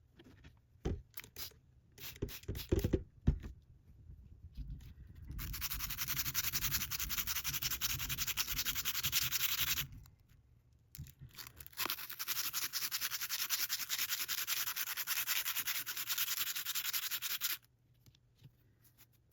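Rusty steel tool being sanded to remove rust: a few handling knocks, then two long stretches of steady, even abrasive scratching with a short pause between.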